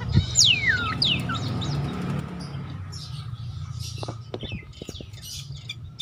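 Caged jalak nias myna, the male, calling: two loud whistles falling steeply in pitch near the start, followed by softer chirps and a few sharp clicks.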